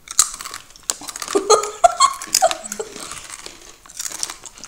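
Crunchy onion-flavoured wheat snack rings being bitten and chewed close to the microphone, a busy run of crisp crunches.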